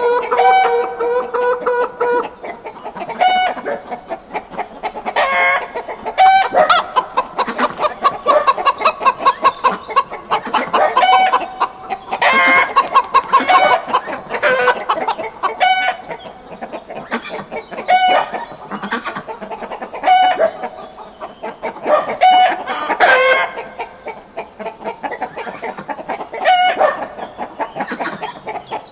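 Chickens clucking and calling. A long drawn-out call ends about two seconds in, followed by short calls every second or two and two rapid runs of clucks.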